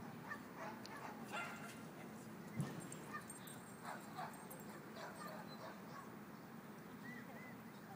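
Small dogs barking and yipping faintly in short, scattered calls, with a few short high yips near the end.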